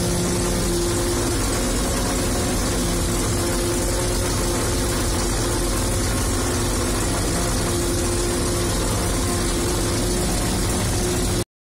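Fortschritt E-281 self-propelled forage harvester running steadily under load while chopping maize, heard from inside the cab: a constant engine drone mixed with the noise of the cutting machinery. The sound breaks off for a moment near the end.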